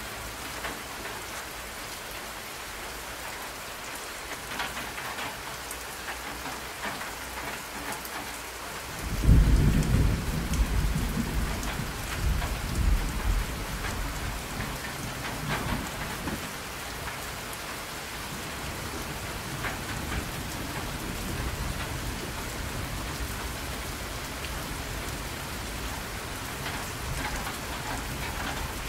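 Steady rain with a low roll of thunder that breaks in suddenly about a third of the way in and dies away over several seconds.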